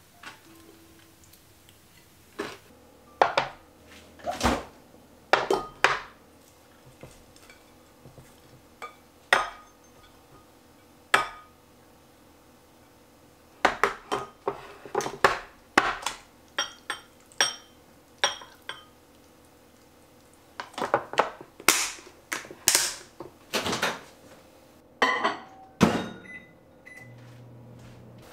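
Clusters of clicks, knocks and clatter of kitchenware: a glass food-storage container with a snap-lock lid being unclipped and handled on a wooden cutting board, with dishes and utensils knocked about.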